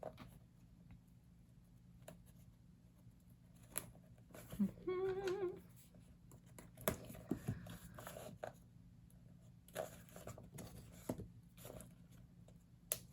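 Faint paper handling while plates are removed from an old book: scattered rustles, taps and small clicks of pages and binding. About five seconds in, a brief hummed "mm" from the person working.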